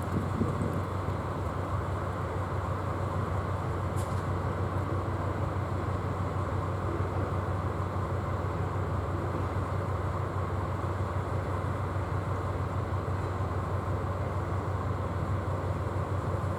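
DF200 diesel-electric locomotive's engine running steadily with a low, even drone. There is a short click about four seconds in.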